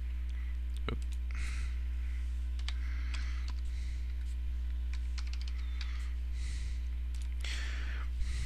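Computer keyboard typing in short, scattered runs of keystrokes, over a steady low electrical hum.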